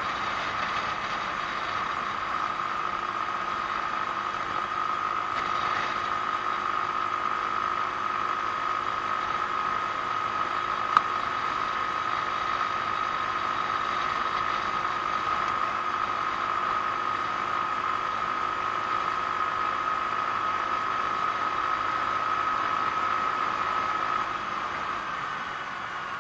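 Genuine Buddy 125 scooter's 125 cc single-cylinder four-stroke engine and drivetrain running at a steady cruise, a constant high whine under a haze of wind and road noise on a chest-mounted camera. A single sharp click comes about eleven seconds in, and the sound drops a little in level near the end.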